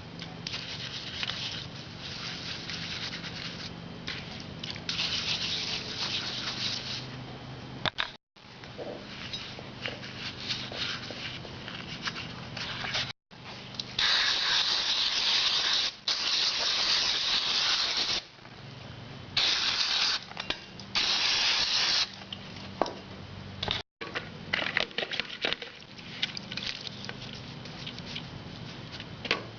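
Hiss of a spray blasting cleaning solution over engine parts, coming in stretches that cut off abruptly several times, loudest in two bursts past the middle.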